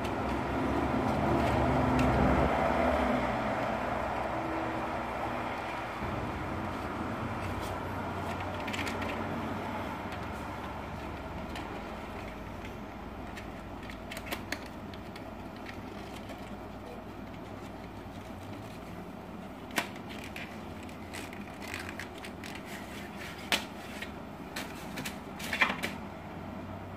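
Plastic LED light bars and their packaging being handled: scattered light clicks and knocks, with several sharper ones in the second half. Under them a steady low background rumble, louder in the first few seconds.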